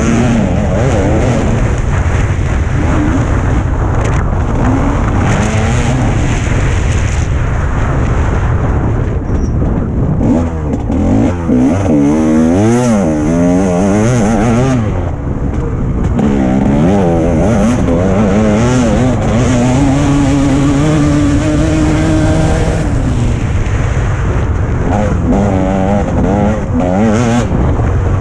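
TM 300 two-stroke motocross bike engine under hard throttle, its pitch rising and falling over and over as the rider opens and closes the throttle and shifts through the gears on the track.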